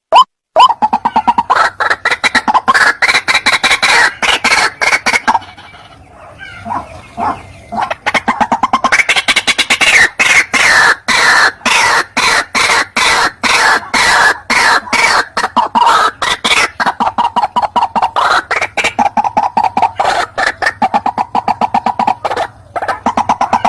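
White-breasted waterhen calling: a fast, unbroken run of loud croaking notes, several a second, with a brief lull about six to eight seconds in.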